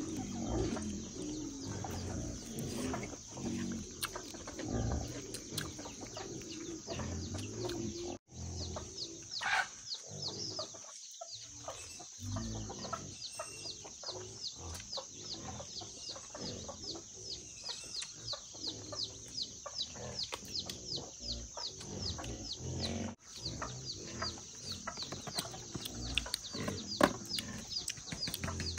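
Free-range chickens clucking and chirping in a farmyard. Through most of it, rapid short high chirps repeat several times a second over a steady high hiss.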